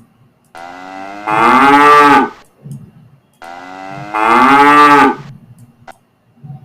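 Cow mooing twice, two long drawn-out moos about a second apart, from a sound-effect recording.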